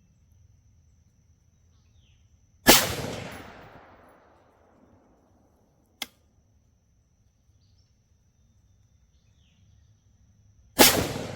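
Two rifle shots from a PSA Sabre 15 AR-15 in 5.56, about eight seconds apart, each followed by a long fading echo. A single sharp click comes between them.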